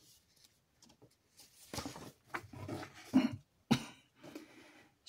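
A page of a paper picture book is turned by hand, making soft paper rustles and a flap from about a second and a half in. A short, soft cough comes a little after the three-second mark.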